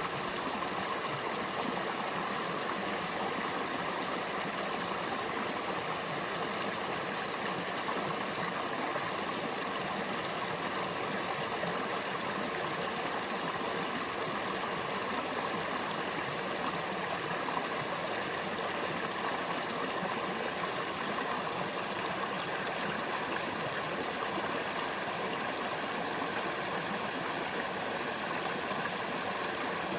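Creek water flowing and rushing over rocks.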